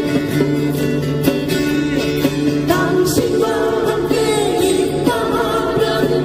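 An acoustic guitar ensemble strumming chords together, with voices singing a melody over the guitars, heard through the stage loudspeakers.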